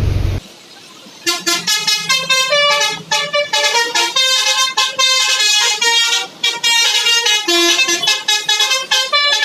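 Indonesian 'telolet basuri' multi-trumpet bus horn playing a quick tune of short notes, several a second, starting about a second in.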